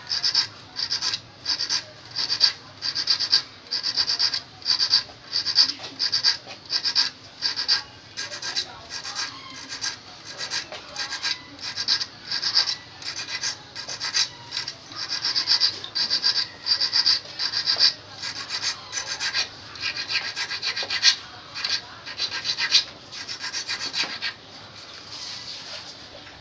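Small hand file rasping back and forth over the point and barb of a fishhook, sharpening it, in short strokes about two a second. The strokes thin out and stop near the end.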